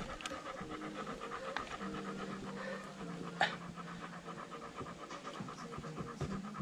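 A dog panting rapidly and steadily, with a faint steady hum underneath and a single small click about halfway through.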